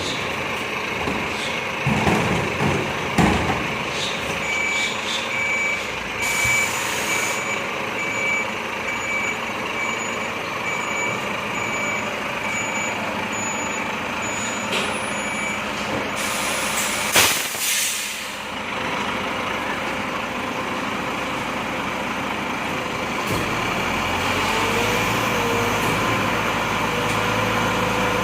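Volvo FM 370 truck running, with a couple of heavy thumps a few seconds in. Its reversing alarm then beeps about once a second for around ten seconds, followed by a sharp air-brake hiss. Near the end the engine note rises and then holds steady.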